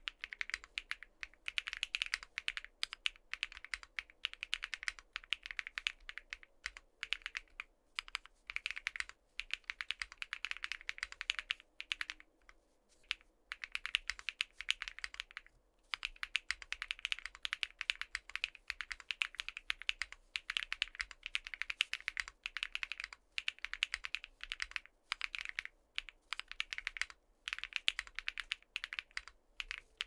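Ginkgo65 mechanical keyboard with linear switches being typed on fast and continuously, a dense run of crisp key clacks, with a short pause a little before halfway.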